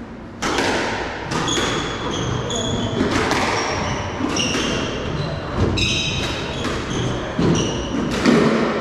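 Squash rally: the ball is struck again and again off rackets and the court walls in sharp knocks, while players' shoes give short, high squeaks on the wooden court floor.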